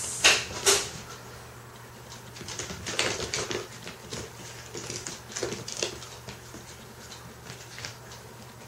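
A cat's paws and claws scrabbling and tapping on a hardwood floor as it chases and pounces. There are two sharp knocks in the first second, then bursts of quick patter about three seconds in and again around five to six seconds.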